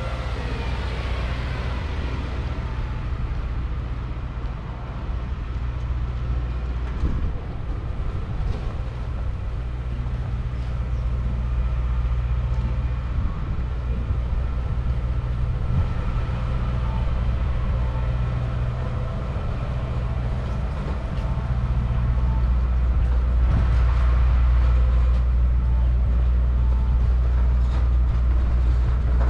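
Steady low rumble of a large vehicle's engine, getting louder about three-quarters of the way through.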